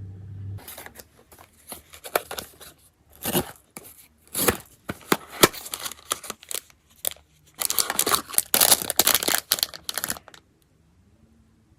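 Blind box packaging being torn open and crinkled by hand, in a run of irregular rips and crinkles. The longest, densest stretch comes about eight to ten seconds in, and the sound stops shortly before the end.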